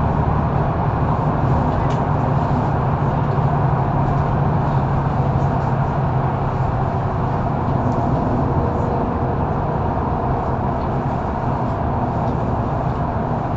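Mercedes-Benz O530 Citaro articulated intercity bus under way, heard from inside: steady diesel engine drone with tyre and road noise.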